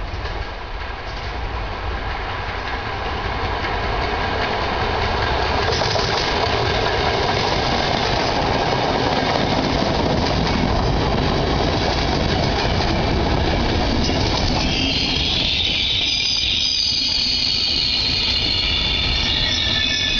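Regional passenger train with an E464 electric locomotive at the rear rolling past, its wheels rumbling and clattering over the rails and growing louder as the coaches draw level. About three-quarters of the way in, several high squealing tones join as the locomotive passes, sliding slightly down in pitch.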